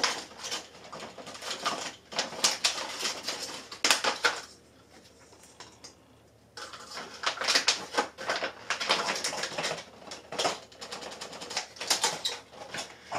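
Christmas ball ornaments clicking and rattling against their clear plastic tube package as they are worked out of it, with crinkly plastic handling and a short quieter pause in the middle.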